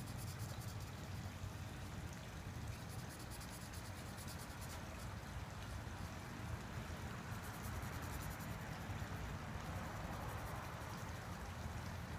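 Marker tip rubbing across a paper page in steady colouring strokes, a continuous quiet scratching as an area is filled in.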